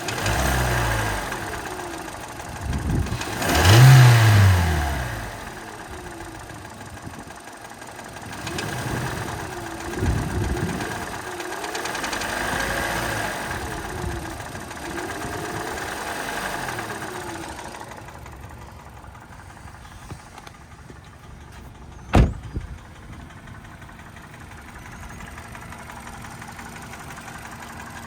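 2013 Hyundai Elantra's four-cylinder engine, said to have piston slap, revved up and down several times, the biggest rev about 4 s in, then settling to idle. A single sharp click about 22 seconds in.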